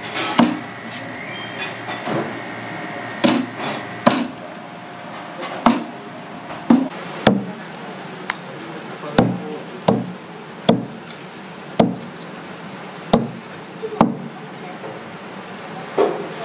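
Cleaver chopping monkfish on a wooden chopping block: a string of sharp knocks, spaced irregularly and coming about once a second through the second half.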